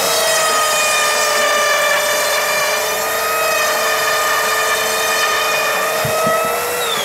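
Mafell insulation rope saw cutting through a 60 mm wood-fibre insulation board along its guide rail: a loud, steady motor whine. At the very end the pitch begins to fall as the saw is switched off.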